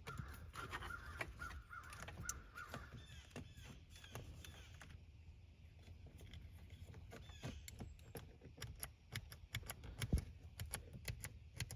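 Faint plastic clicks and scrapes as an OEM-style push switch is worked into the dash switch panel of a 5th-gen Toyota 4Runner. A sharper click about ten seconds in is the switch snapping into place.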